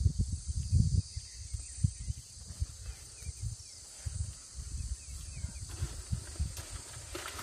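Wind buffeting the microphone in uneven gusts, strongest in the first second, over a steady high drone of insects.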